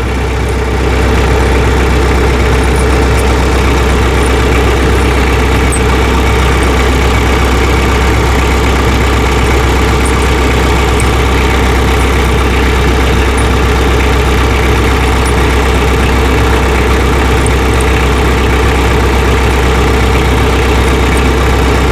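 Tractor engine idling steadily, with a few faint clicks from chain links being shifted by hand.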